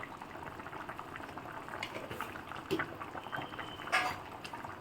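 Chicken and vegetable stew simmering in a pot, a steady dense bubbling and popping, with a sharper click about four seconds in.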